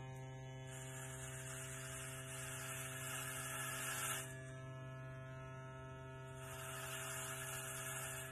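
Corded Wahl electric hair clippers running with a steady hum, cutting through very short hair on the head in two passes: the blade noise of the cutting comes in about a second in, stops around four seconds, and comes in again about six and a half seconds in.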